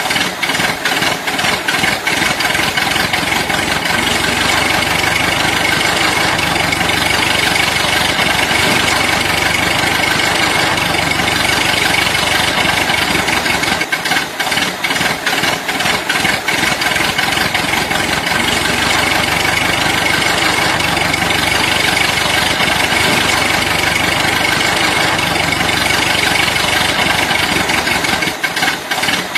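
Steady engine running at idle, a continuous rattly mechanical drone that keeps the same pace throughout.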